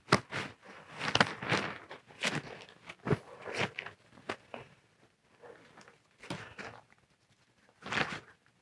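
Irregular rustling and crunching close to the microphone as a nylon dome tent and its pole are handled and the person moves about: dense scrapes through the first four seconds or so, then sparser ones.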